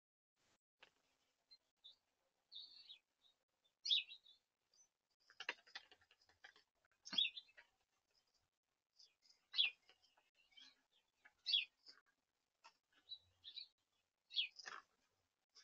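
Short, high-pitched chirps at irregular intervals, some a few seconds apart, mixed with faint scuffs and taps on wooden deck boards while a cat rolls and bats at a small toy.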